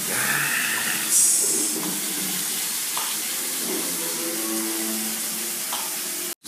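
Steady, loud hissing noise with faint voices underneath.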